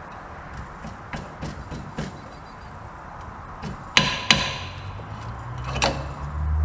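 Metal parts and tools knocking on the Scag mower's front caster: a few light clicks and taps, then two sharp ringing metal strikes a fraction of a second apart, and one more ringing strike about a second and a half later. A low hum comes up near the end.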